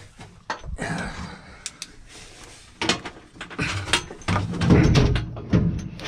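Scattered clicks, knocks and rattles of hands handling the parts of an old Whirlpool washing machine while its water inlet valve is being removed.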